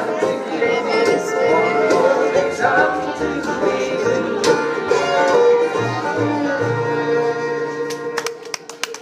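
Live bluegrass band playing, with banjo, fiddle and guitar. About eight seconds in the tune ends on a held note and handclaps start.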